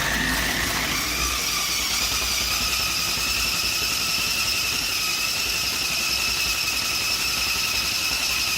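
Small electric drive motors of a toy RC stunt car whining steadily as the car spins in place, the pitch rising during the first second as they spin up.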